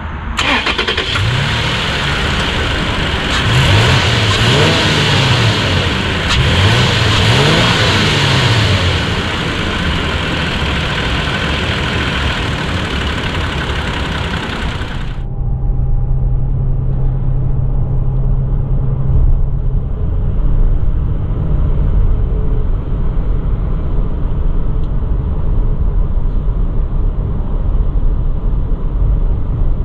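Toyota Tacoma V6 engine running with the hood open, revved up and back down several times. About halfway through it gives way to the steady low rumble of the truck driving at highway speed, heard from inside the cabin.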